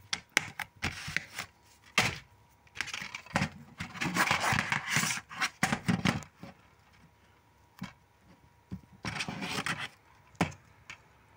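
Plastic DVD cases being handled and turned over: several sharp clicks, with stretches of scraping and rubbing in between.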